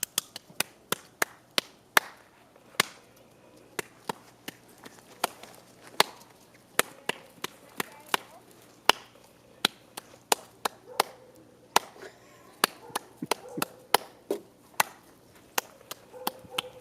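A long series of sharp, irregular clicks and snaps, about one to three a second, against a quiet background.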